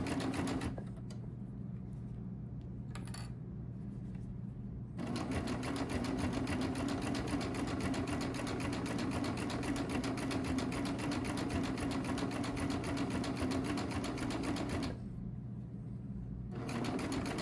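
Baby Lock Triumph 8-thread serger running at a slow, steady pace, stitching bias binding onto the curved edge of a knit mask through a binder attachment. It stops for about four seconds soon after the start and again briefly near the end, leaving only a low hum.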